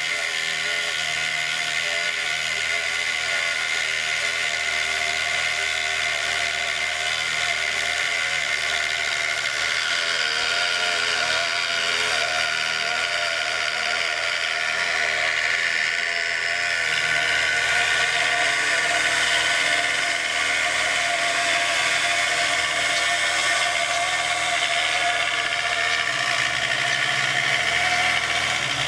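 Dremel rotary tool on a homemade CNC router running at high speed, its small rounded bit grinding traces into a copper-clad circuit board. A steady whine with several tones, getting a little louder a bit past halfway through.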